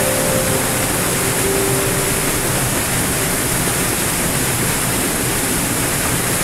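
A small waterfall on a rocky stream, water pouring over rocks into a foaming pool: a steady, even rush of water.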